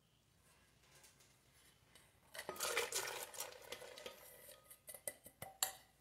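Raisins tipped from a bowl into a glass blender jar holding milk, pattering and rattling against the glass for about two seconds. A few short sharp clicks follow near the end.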